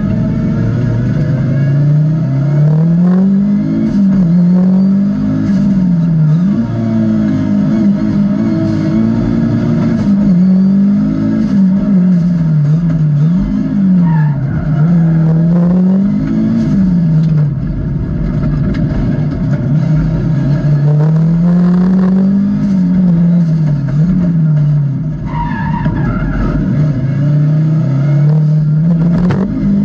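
Audi Quattro A2 rally car's turbocharged five-cylinder engine heard from inside the cockpit, its revs repeatedly climbing and dropping with gear changes and braking for corners. A short tyre squeal comes about halfway through and again near the end.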